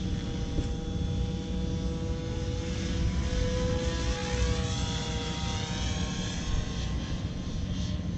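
Radio-controlled F3C aerobatic helicopter flying overhead: a steady whine of its motor and rotors that swells and shifts in pitch a few seconds in as it manoeuvres, over a low rumble.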